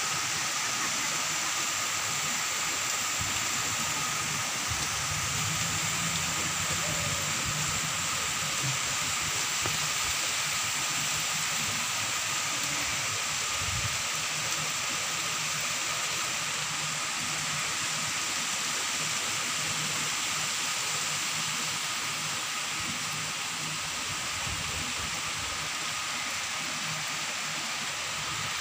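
Heavy rain falling steadily, an even rushing hiss with no let-up.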